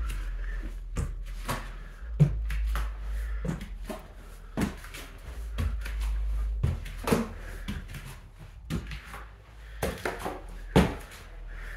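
Footsteps climbing bare, worn wooden stairs: irregular thuds and knocks of shoes on the treads, a few louder ones about two seconds in and near the end.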